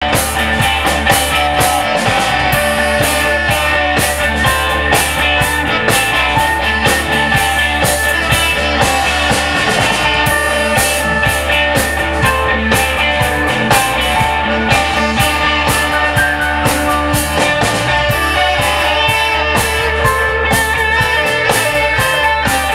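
Live psychedelic rock band playing loud and unbroken, with electric guitars, bass and a drum kit keeping a steady beat.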